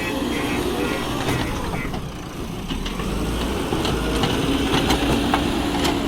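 Heavy diesel engine of a backhoe loader or truck running and rising in speed about halfway through, with a reversing alarm beeping about twice a second for the first couple of seconds. A few sharp clicks near the end.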